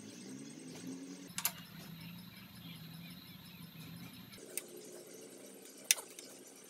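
An open-end spanner tightening a bicycle pedal into its crank arm, with a couple of sharp metallic clicks, one about a second and a half in and one near the end, over faint low tones.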